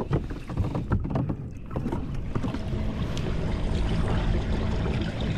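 A few knocks and clunks on a fishing kayak, then from about two seconds in the kayak is under way: a steady rush of water along the hull with a faint, even hum from its electric motor.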